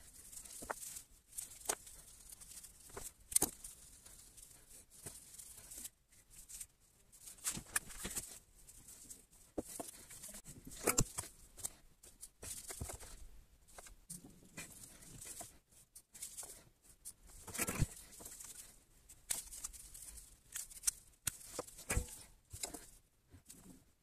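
Gloved hands working with wire and a soldering iron on a workbench: irregular rustling, scraping and small clicks as cable is stripped and wires are soldered to a small circuit board.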